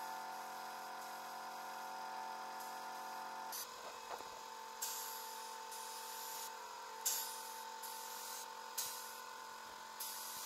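Paint spray gun hissing in about six short bursts as the trigger is pulled, over a steady machine hum.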